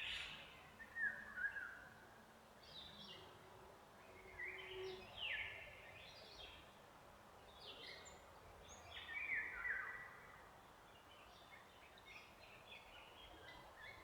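Bird calls: a string of short chirps and quick falling whistled notes, bunched in bursts every second or two, over a faint steady hiss of background noise.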